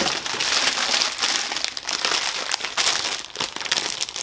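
Clear plastic packaging crinkling and rustling, with many small sharp crackles, as a bagged item is lifted out of a cardboard box.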